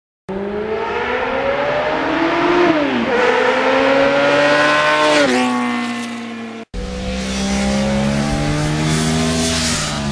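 A high-revving engine accelerating hard through the gears: the note climbs and drops at each shift, about three and five seconds in. It cuts off abruptly and is followed by a steadier engine note that slowly rises.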